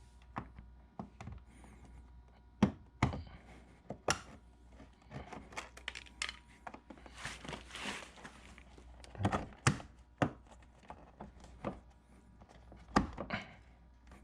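Plastic parts and a sheet of tint film being handled by hand: scattered sharp clicks and knocks, with a short rustling hiss about eight seconds in.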